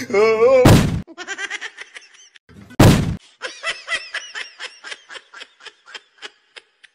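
Laughter, a long run of quick ha-ha bursts, broken by two sudden loud noise bursts about one second and three seconds in.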